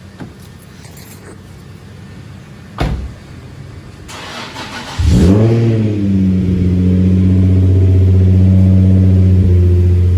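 2008 Nissan 350Z's VQ35HR V6 cranked by the starter and catching about five seconds in, flaring briefly in revs and then settling to a steady idle. A single sharp click comes shortly before the cranking.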